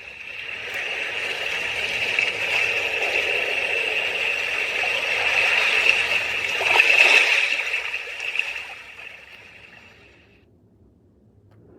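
Recorded sound of flowing water played through the sunrise alarm clock lamp's small speaker, fading in over about two seconds, swelling briefly near the middle, and fading out near the end.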